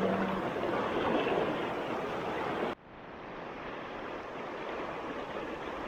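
Rushing river water, a steady noisy wash. It drops out abruptly about three seconds in, then comes back.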